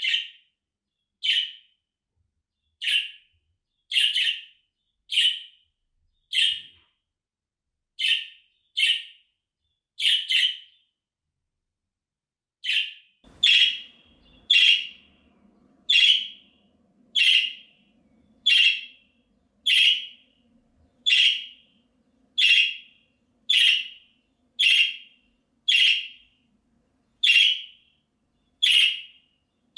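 Budgerigar repeating a short, high contact call about once a second, with a pause of about two seconds just before the middle. A faint low hum runs beneath the later calls.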